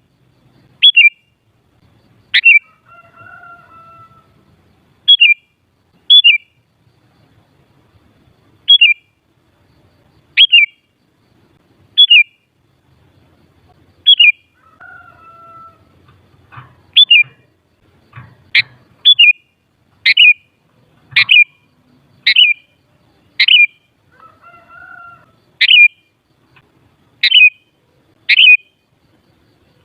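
Sooty-headed bulbul calling: short, sharp, downward-sweeping notes repeated at irregular gaps, coming quicker in the second half. Three times a softer, lower, drawn-out note sounds between them.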